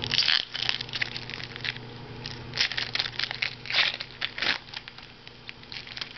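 Plastic packaging of a trading-card box crinkling and tearing as it is opened, in short irregular crackles.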